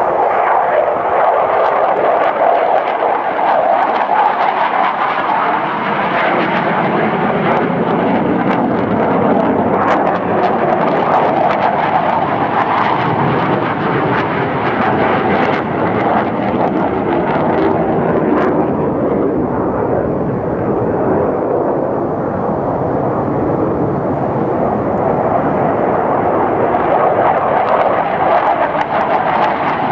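McDonnell Douglas F-15 Eagle's twin turbofan engines on an afterburner takeoff roll, lift-off and climb-out: loud, continuous jet noise with sharp crackles through the middle.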